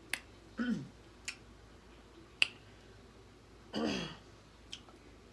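Eating sounds: a few sharp clicks and smacks, the loudest about two and a half seconds in. Two short hummed 'mm' sounds fall in pitch, one near the start and one about four seconds in.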